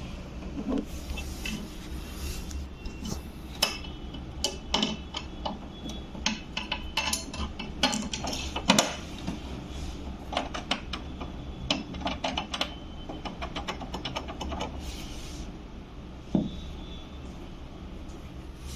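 Irregular metallic clicks and clinks of a hand tool and screws against a steel TV wall-mount bracket, as the two screws that lock the TV onto the swivel arm are driven in from below. A duller knock comes near the end.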